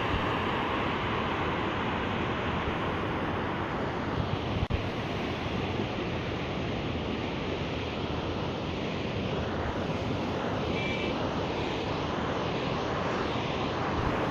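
Steady rushing of water from sewage and effluent pouring into the river, with one short knock about a third of the way through.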